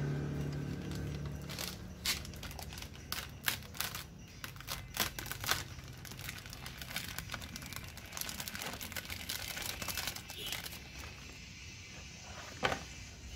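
Clear plastic sheet being peeled off the top of a wooden stingless-bee hive box, crinkling and crackling in irregular bursts, busiest in the first half, with one sharper crackle near the end.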